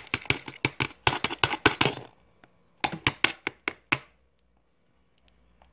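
Rapid run of sharp taps and knocks of a container and utensil against a metal cooking pot as meat and seasoning are tipped into the beans. It breaks off about two seconds in, and a shorter run of knocks follows about a second later.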